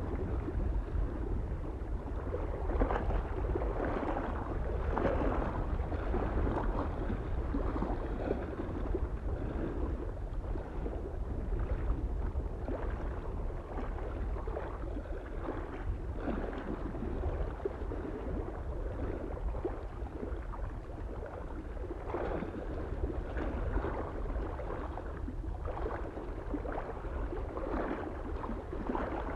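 Small waves lapping and splashing against a mountain lake's shore, in irregular washes every second or two, over a steady low rumble of wind on the microphone.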